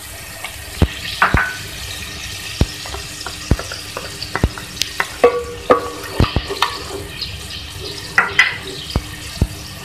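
Spiced masala sizzling as it fries in a metal pot, while a wooden spoon stirs it, knocking against the pot's sides in irregular taps.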